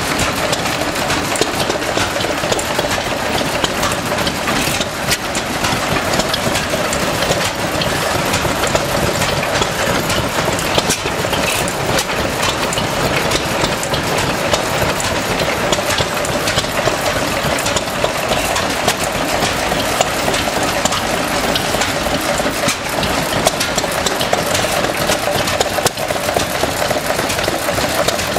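Vintage stationary engines, among them a small red hopper-cooled engine with twin flywheels, running steadily at idle together. The sound is a dense, even mechanical clatter of exhaust beats and valve gear with no change in speed.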